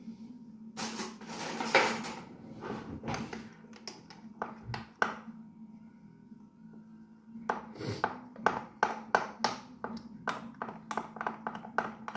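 Kitchen utensils on dishes: a rustle and clatter, then a spoon clinking rhythmically against a bowl, about three times a second, as potato starch is stirred into a mixture. A faint steady hum runs underneath.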